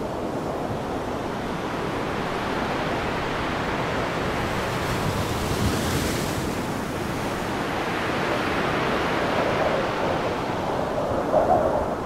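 Strong tropical wind blowing over a lagoon, with small wind-driven waves washing onto a sandy beach. The rushing noise is steady and swells briefly about halfway through.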